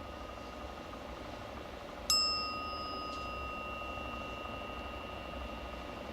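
The 'Glory of Russia' bell struck once about two seconds in and left ringing, several clear tones fading slowly. A faint tap follows about a second later, and the last of an earlier stroke is dying away at first.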